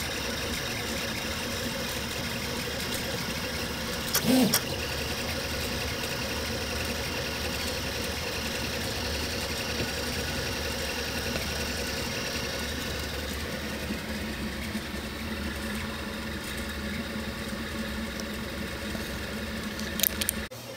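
Velleman K8200 3D printer running a print: a steady hum and whine from its stepper motors and cooling fans. About four seconds in, and again near the end, a short louder motor whine rises and falls in pitch.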